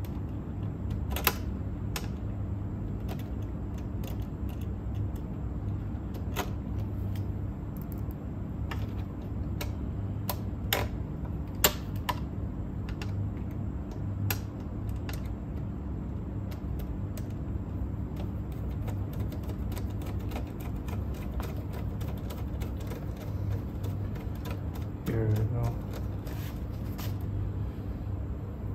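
Irregular small clicks and taps of screws, a screwdriver and metal parts being handled while a cassette deck is put back together, over a steady low hum.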